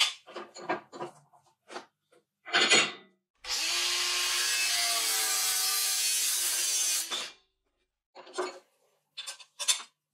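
Angle grinder cutting through a steel bar clamped in a vise, a steady grinding noise for about four seconds starting a third of the way in. Before it come short clicks and knocks, the sharpest right at the start, and a few light clicks follow it.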